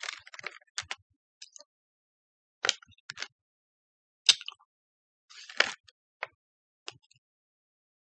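Irregular crunches and cracks of hard-shelled Toxic Waste Smog Balls sour candy being chewed, the loudest about four seconds in, with short rustles of the plastic candy tube being handled near the start and again after five seconds.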